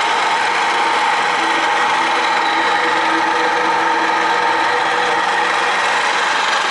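Metal milling machine cutting steel on a pass: the motor and spindle run with a steady whine over the hiss of the cutter, at an even level throughout.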